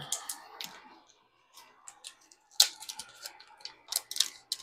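Irregular sharp clicks and crinkles of small parts and a foil parts bag being handled. The loudest clicks come about two and a half seconds in and in a cluster around four seconds in.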